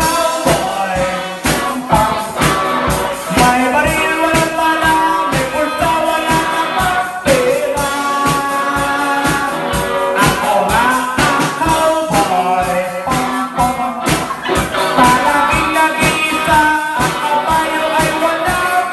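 A man singing into a microphone over a live band of electric guitar and drum kit, with a steady beat throughout.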